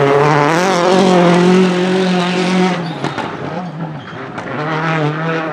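Citroën C4 WRC's turbocharged four-cylinder engine held at high revs with a wavering pitch while the car slides with tyres squealing. About three seconds in it comes off throttle with a few sharp cracks, then revs up again near the end.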